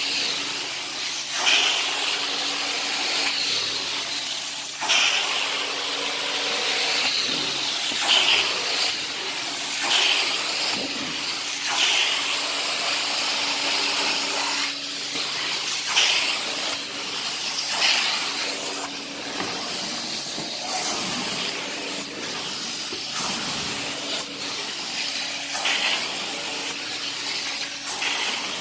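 Carpet-cleaning extraction wand spraying cleaning solution into the carpet and vacuuming it back up. The suction hiss is steady, with a louder surge on each stroke about every two seconds, over a faint steady hum.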